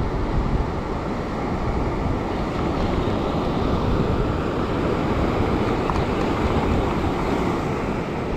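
Ocean surf washing over a rock ledge, with wind on the microphone: a steady rush with no break.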